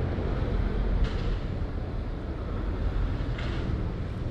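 Steady low rumble of outdoor noise, wind on the microphone mixed with street traffic, with two faint brief rustles about a second in and near the end.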